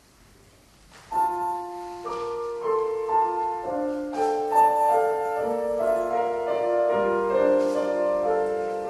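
Mixed choir and piano begin after about a second of near silence: held notes enter one after another and build into sustained chords.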